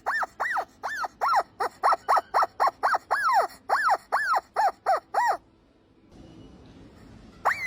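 Rubber squeaky dog toy squeezed over and over, a quick run of squeaks each rising then falling in pitch, about four a second, stopping about five seconds in, then one more squeak near the end.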